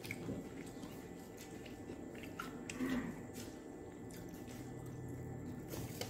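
Eating rice and curry by hand: fingers squishing and gathering rice on a plate, with chewing. Faint soft squishing and small clicks, slightly louder about three seconds in.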